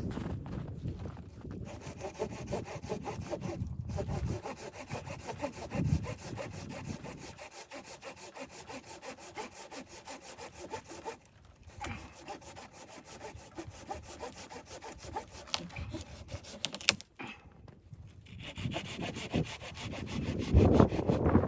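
Hand saw cutting through wood in a steady run of strokes, with a few short pauses, and a louder low thud near the end.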